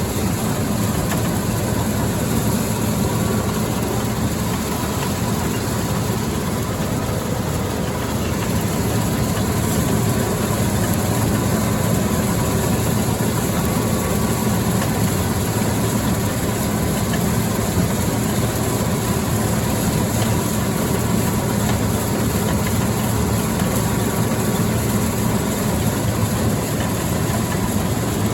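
John Deere 9400 combine running steadily while harvesting soybeans: diesel engine and machinery at a constant, unchanging drone.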